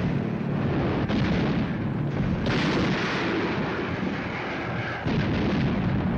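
Anti-aircraft guns firing in a sustained barrage with shell bursts, one report overlapping the next, and a heavier report about two and a half seconds in.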